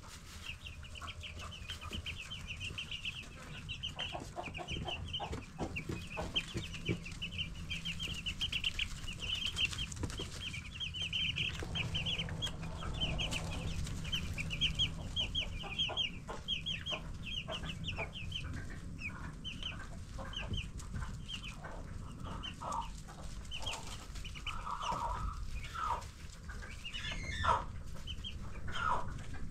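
A brood of 10-day-old broiler chicks peeping: rapid high-pitched cheeps overlapping thickly for the first half, then thinning out, with a few lower calls near the end. A low steady hum runs underneath.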